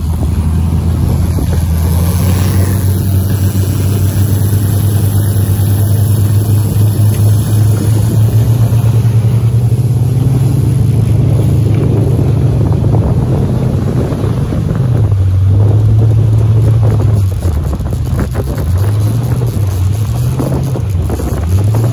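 Motorboat engine running under way, with wind and water noise. The engine note climbs slowly over the first half, drops back about two-thirds through, then rises and falls several times near the end as the throttle is worked.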